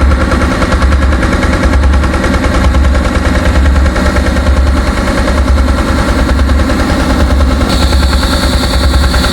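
An engine running nearby with a rapid, even pulsing beat; a steady high hiss joins near the end.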